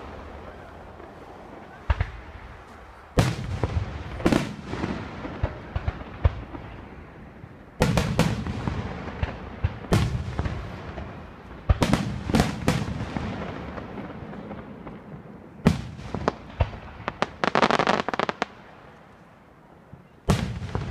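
Aerial firework shells bursting one after another as loud bangs, each trailing off in an echo. A rapid run of crackling comes near the end.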